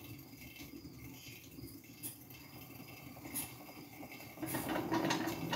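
Faint rattling and whirring of hamsters running on clear plastic saucer wheels, with a couple of light clicks, growing louder near the end.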